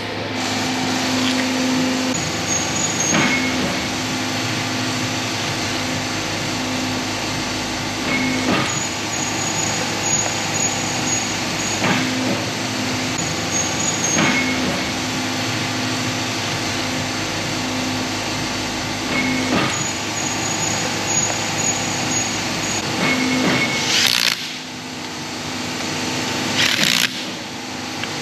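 Workshop machinery running steadily with a faint hum, sharp metallic knocks every few seconds, and several short hissing bursts near the end.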